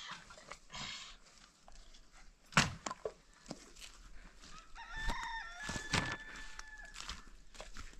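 A rooster crowing once, a drawn-out stepped call of about two seconds in the second half. It sits over a few sharp knocks, the loudest about two and a half seconds in.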